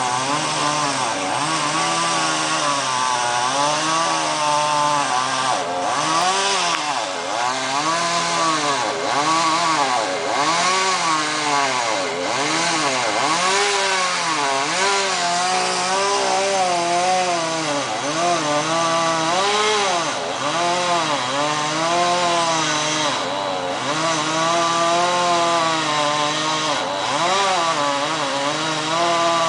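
Chainsaw running and cutting wood, its engine pitch rising and dipping every second or two as it revs and bogs under load.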